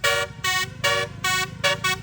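Telolet musical bus horn on a Bagja Trans coach playing a tune in short chorded blasts: four notes, the first two longer and the last two quick.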